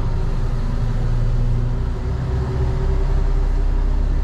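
Mercedes truck's diesel engine running steadily as the truck creeps along at low speed, heard from inside the cab as a deep, even drone.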